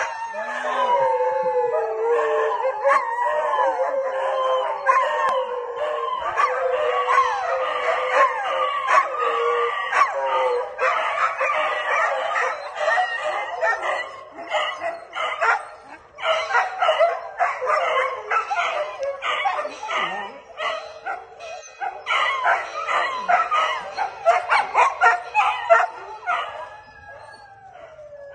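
Dogs howling, several long wavering howls overlapping in the first half, then shorter, choppier howls and yips later on.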